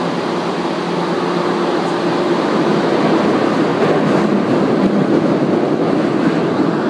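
Tokyu 8500 series electric train running through a subway tunnel, heard from inside the car: a steady rumble of wheels on rail and motor noise, with a faint steady hum in the first couple of seconds and the noise growing slightly louder about three seconds in.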